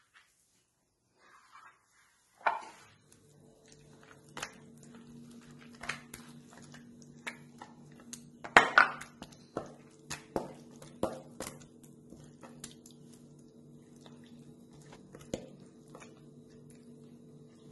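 Hands working wet masala paste onto fish in a plastic tray, the tray knocking and scraping on the counter: scattered clicks and knocks, loudest about eight and a half seconds in. A steady low hum starts about two and a half seconds in and runs underneath.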